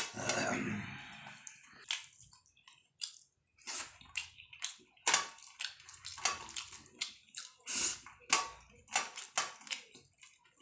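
Fingers mixing and mashing rice with fish curry on a stainless steel plate: irregular wet squishes and small clicks, with fingertips scraping and tapping the steel. A denser, longer squelch comes in the first second or so.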